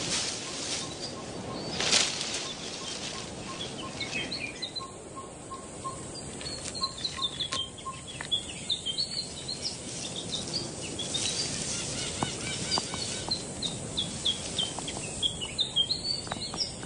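Forest bird chorus: several birds chirping and trilling high, over a steady series of lower piping notes, about two a second, that stop about eight seconds in. A short burst of noise comes about two seconds in.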